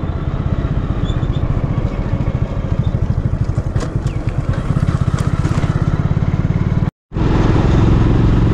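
Motorcycle engine running steadily under way, a fast low pulsing. The sound cuts out completely for a moment about seven seconds in.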